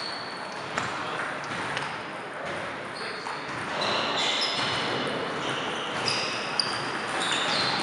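Table tennis doubles rally: the ball clicking off paddles and table, with short high squeaks of sneakers on the gym floor through the second half.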